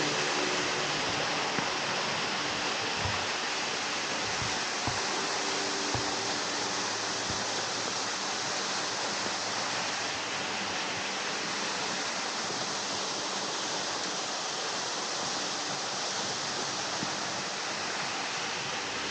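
Waterfall pouring steadily, a constant rush of falling water.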